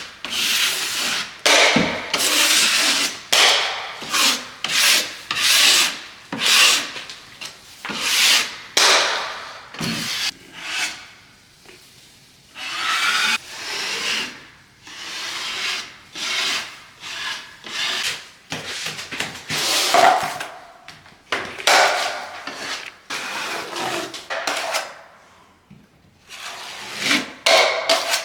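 Rasping strokes of a hand tool worked back and forth against drywall, about one to two strokes a second, with a couple of short pauses.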